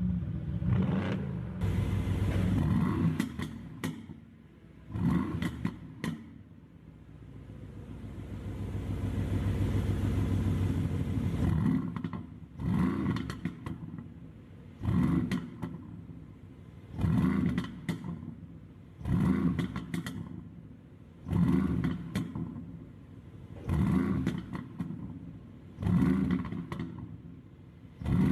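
Mercedes-AMG GT S twin-turbo V8 being revved while standing. A long rev builds and holds for a few seconds early on. After that come short blips about every two seconds, each followed by crackling pops on the overrun from a pop-and-crackle engine tune.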